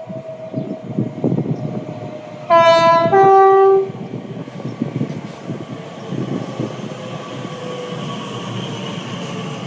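Elizabeth line Class 345 electric train sounding its two-tone horn about two and a half seconds in: a higher note then a lower note, about a second and a half in all. The train's rumble and wheel clatter run on under and after it.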